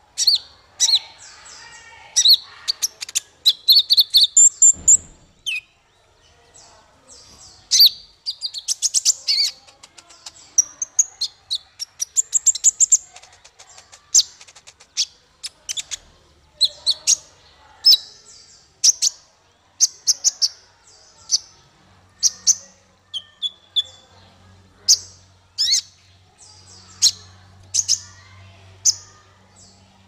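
Male kolibri ninja (Van Hasselt's sunbird) singing: a quick run of sharp, high-pitched chirps and short twittering trills, coming in dense clusters and then as more spaced single notes. There is a brief low thump about five seconds in.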